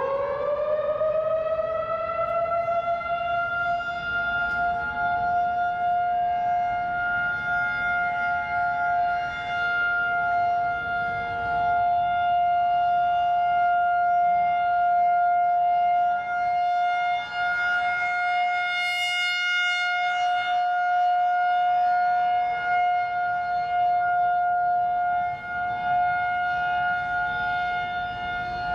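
Federal Signal 2001-130 outdoor warning siren sounding a steady tone during a monthly test. It finishes winding up to full pitch about a second in, then holds one pitch with slight swells in loudness.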